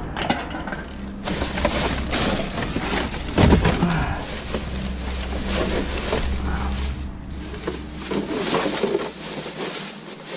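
Plastic rubbish bags and packaging rustling and crackling as hands dig through a dumpster, over a steady low hum that drops away about three-quarters of the way through.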